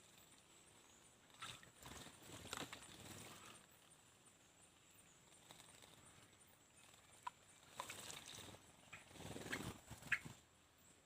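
Small birds bathing: two spells of faint splashing and wing-fluttering in water, with a few short, high chirps in the second half.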